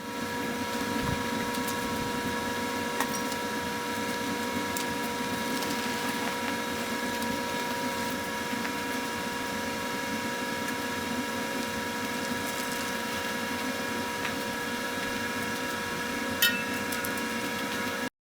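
A steady mechanical hum with a few faint clicks, and one sharper click near the end.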